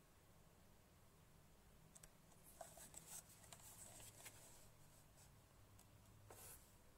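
Faint handling noise: fingers rubbing and tapping on the casing of an external slim optical drive as it is turned over in the hands. There is a cluster of soft clicks and rubs in the middle and one brief rub near the end, over a faint low hum.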